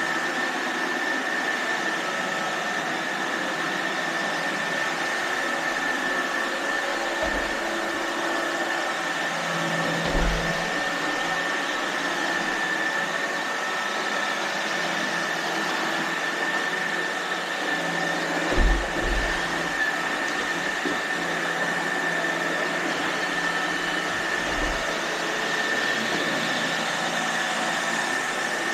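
Several iRobot Roomba robot vacuums running: a steady whirring hum with a steady high whine. A few brief low thumps come through it, about a third of the way in, around two-thirds of the way in, and near the end.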